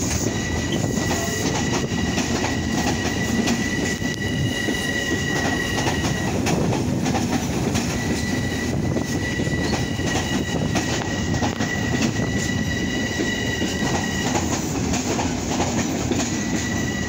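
Long Island Rail Road M7 electric multiple-unit train running past at platform level: continuous wheel rumble and clatter on the rails. A high steady whine sounds twice, each time for about six seconds.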